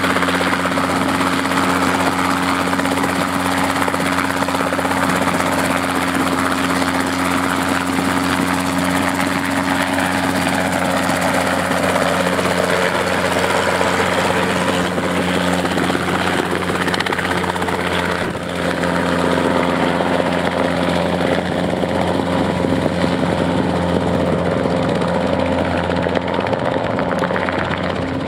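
Safari 500 experimental helicopter hovering low: a steady hum of engine and main and tail rotors, with broad rotor noise above it. The sound dips briefly about two-thirds of the way through, and its highest sounds fade near the end as the helicopter is farther away.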